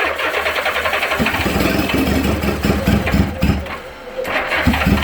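Honda GL1000 Gold Wing flat-four engine cranking on its electric starter in a no-start attempt: one long crank of almost four seconds, a short pause, then a second crank near the end.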